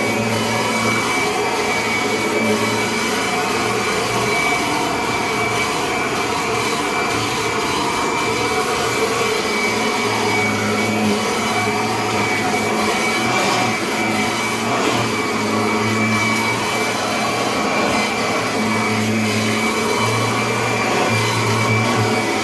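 Kirby upright vacuum cleaner running steadily, with a high whine over its motor noise. Its low hum changes every few seconds as it is worked.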